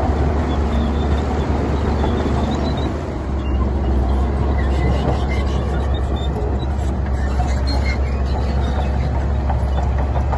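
Heavy diesel earthmoving machinery running steadily with a deep, constant rumble, joined by faint short high squeaks from about halfway through.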